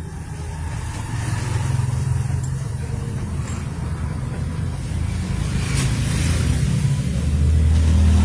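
Microphone handling noise through an amplifier: a heavy low rumble with a few faint clicks as the microphone is moved at the fault spot that makes it cut out.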